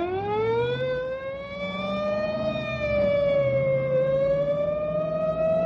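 Squad car siren sound effect: a wailing siren that winds up in pitch over the first second, then holds high and steady with a slight dip about four seconds in.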